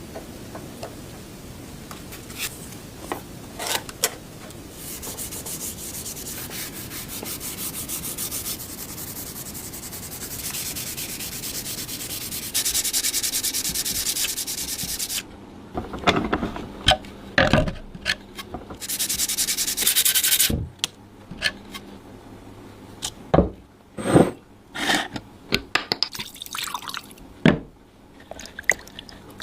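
Abrasive rubbing on rifle parts during rust removal: long steady stretches of sanding or scrubbing, then short separate scrapes and knocks in the second half.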